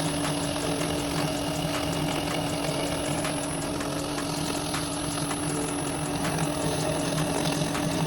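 Metal lathe running steadily during turning: an even machine hum holding a few fixed tones, with faint scattered ticks.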